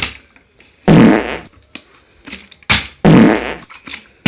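Two comic fart sound effects, each about half a second long, the second coming right after a sharp knock.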